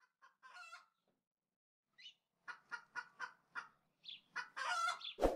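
Chicken clucking: a few scattered clucks, then a quick run of about five, then a longer drawn-out call. A sharp hit sounds just before the end.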